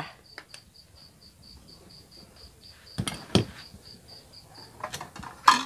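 A cricket chirping steadily, about three or four even chirps a second, with two sharp knocks about three seconds in and a brief clatter near the end.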